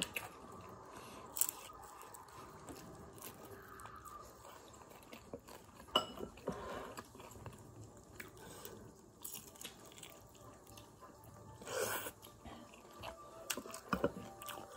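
Close-up chewing and biting of crispy fried sweet-and-sour pork (guobaorou), with scattered short clicks of chopsticks and a spoon against a glass bowl.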